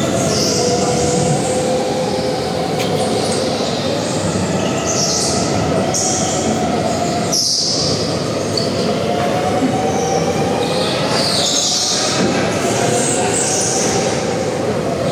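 A go-kart driving on the track: a steady motor tone that slowly drops and climbs again with speed, dipping briefly about halfway, with repeated short bursts of high hissing from the tyres.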